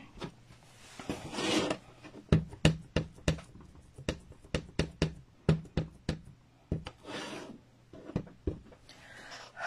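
A clear stamp on an acrylic block is patted onto an ink pad to ink it. The taps are short and light, about two or three a second, with soft rubbing of hands and paper before and between them.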